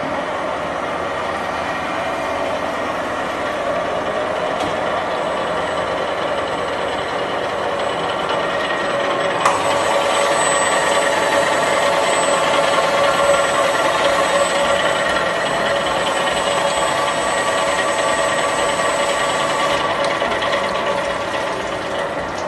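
CNC gear hobbing machine running, its hob cutting a gear under flowing cutting oil: a steady mechanical hum with several held tones and a faint high whine. It grows louder from a sharp click about ten seconds in.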